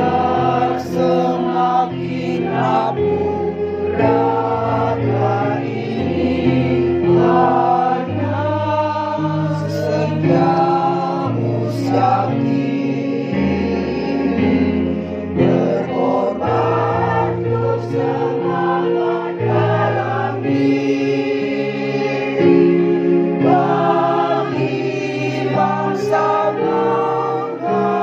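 Choir singing in harmony, with held accompaniment chords underneath.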